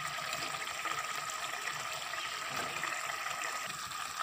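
Spinach and potato curry bubbling in an aluminium pot on the stove, a steady watery hiss.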